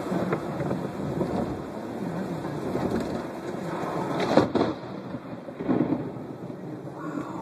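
Steady rain, then the sharp crack of a close lightning strike about four seconds in, followed about a second later by a lower, shorter burst of thunder.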